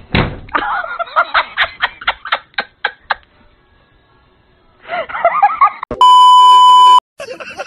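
A person's voice in short, choppy sounds, then a loud, steady test-tone beep for about a second near the end: the tone that goes with TV colour bars.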